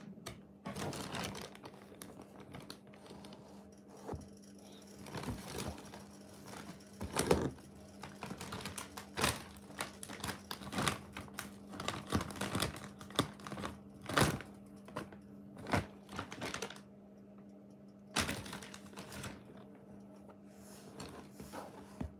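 Thin plastic bag crinkling and crackling in irregular bursts as a cat shifts inside it and a plastic toy rake prods it, with a few brief pauses.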